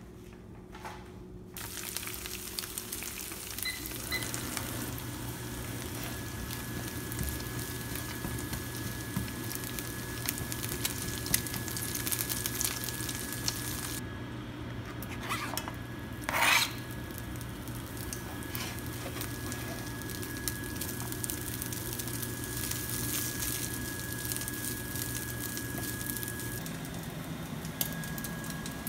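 Oil sizzling steadily in a nonstick frying pan on an electric cooktop as it heats, with small bits of food frying in it later on. A steady low hum runs underneath, and one short loud knock comes about two-thirds of the way through.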